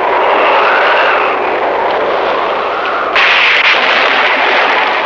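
Cartoon explosion sound effect: a loud, continuous rumbling blast as debris flies, jumping suddenly louder about three seconds in.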